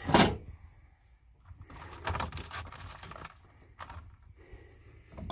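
A short loud bump right at the start, then soft scraping and rustling as handfuls of baby carrots are picked up from a plastic tray.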